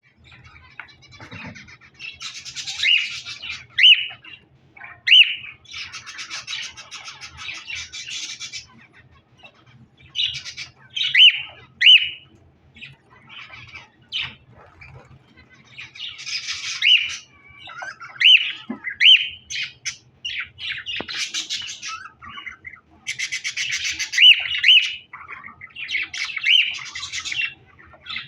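Ornamental cage birds calling: bursts of rapid chattering and sharp squawking notes, coming in clusters with short pauses between them.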